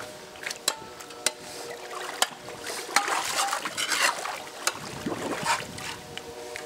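Steel spade blade pushing a cut slab of pond ice down and under the surrounding ice: water sloshing and splashing in the open hole, with sharp knocks and scrapes of blade against ice.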